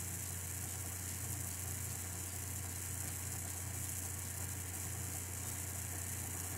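Steady background room tone: a constant low hum with an even high hiss, and no other sounds.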